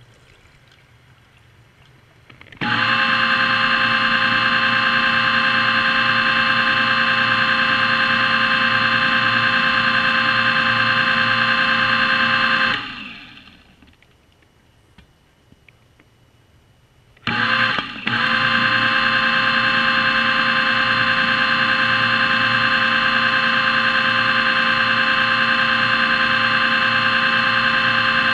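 Underwater scooter (diver propulsion vehicle) motor and propeller running with a steady whine of several tones. It starts about two and a half seconds in, winds down and stops around thirteen seconds, then starts again a few seconds later with a short burst before running steadily.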